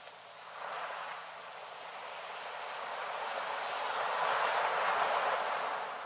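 Small sea waves washing up a sandy beach and drawing back: a hiss of surf that swells briefly about a second in, then builds to its loudest near the end before easing off.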